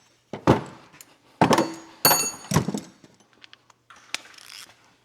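Hand tools and metal exhaust parts clanking under the car. There are four loud clanks in the first three seconds, one of them ringing like struck metal, then lighter clicks and rattles.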